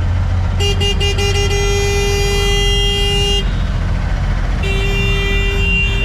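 Vehicle horns sounding super loud in dense street traffic. A few quick toots about half a second in run into a long held blast; another long blast starts near the end, over a steady rumble of engines and traffic.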